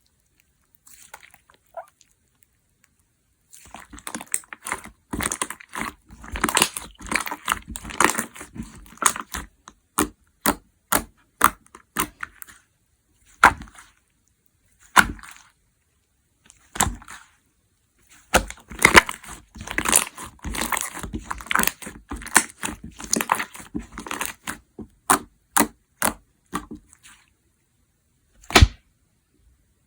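Slime being worked by hand, making dense crackling and sharp popping clicks. Two long runs of quick crackles, with single loud pops between them and one more near the end.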